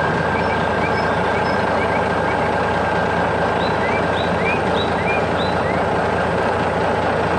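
Heavy truck or construction machine engine running steadily, with a thin steady whine above it. Birds chirp faintly over the engine midway through.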